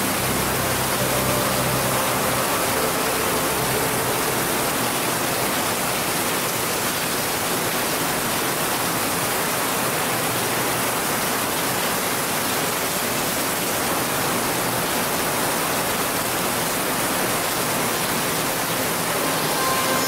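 Steady rain falling on puddled grass and mud: an even hiss.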